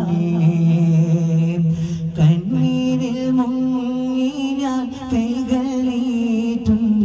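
Male voices singing a madh song in long, held notes, the melody stepping up to a higher note about two seconds in, with a few strikes on daff frame drums.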